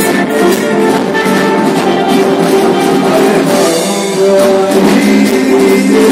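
Live band playing an instrumental passage, with electric guitar and drum kit.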